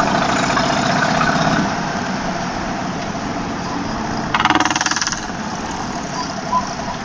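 Motorcycle engine running at road speed under heavy wind rush, slightly quieter from about two seconds in. About four and a half seconds in, a brief buzzing rattle sounds over it.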